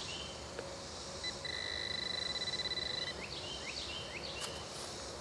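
Handheld metal-detecting pinpointer sounding a steady, rapidly pulsing tone for about a second and a half, which signals that it is right on the buried metal target. Short high chirps come just before and after it.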